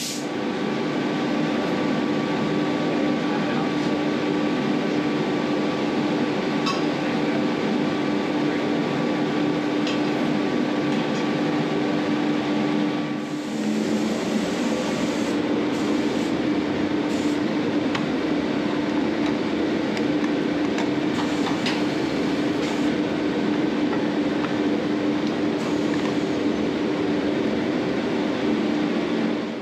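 A steady mechanical drone: a constant hum over a hiss, with a few faint clinks. A higher tone in it drops out about halfway through, where the sound briefly dips.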